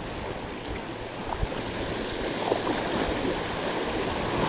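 Sea waves breaking and washing over shoreline rocks, a steady surf wash that swells slightly louder, with some wind on the microphone.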